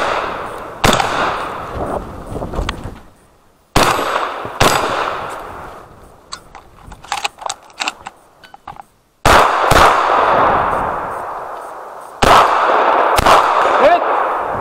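Benelli M2 Speed 12-gauge semi-automatic shotgun firing about eight shots, mostly in quick pairs, each followed by a long echo. In a lull in the middle, small quick clicks and rattles come from the shotgun being reloaded.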